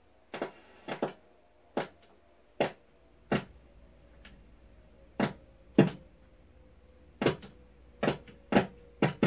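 A dozen or so sharp, irregular clicks, some in quick pairs, as a control knob on a 1949 Admiral television chassis is turned by hand. A faint steady tone runs underneath from about three seconds in.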